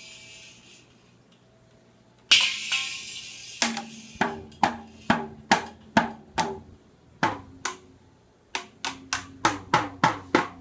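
A baby banging on a toy drum kit. About two seconds in comes one crash that rings and fades, then uneven drum hits about two a second. After a short pause the strikes come faster, three or four a second, near the end.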